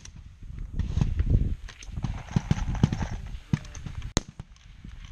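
Rifle shots cracking on the firing line: one sharp report right at the start and another about four seconds in. Between them is a stretch of low rumbling and small clicks and knocks close to the microphone, which is the loudest part.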